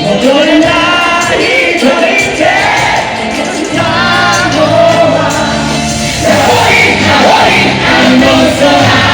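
Loud live rock music with a lead singer.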